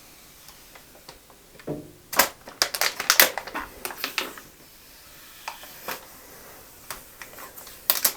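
Handling noise while assembling a PC: irregular clicks, taps and rattles of computer parts and packaging being handled, in quick clusters about two seconds in, around four seconds in and again near the end.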